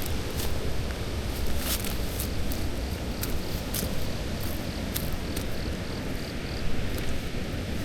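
Footsteps of someone walking, sharp steps about twice a second, over steady outdoor background noise, with a faint insect chirping partway through.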